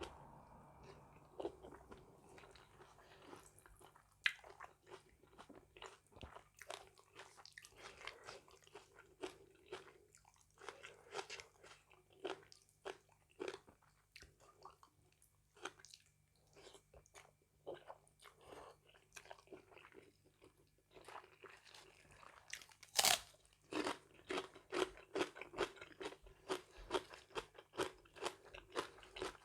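A person chewing and crunching food close to the microphone, with irregular wet clicks and crunches, including one sharp crunch about two-thirds of the way through and busier chewing after it.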